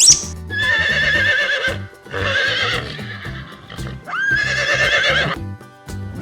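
A horse whinnying three times, each call a high wavering neigh, over background music.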